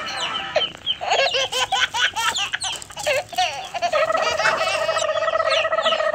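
Hens clucking and chirping in quick, busy calls while they peck grain from a hand. After about four seconds a steady, evenly held tone takes over and lasts to the end.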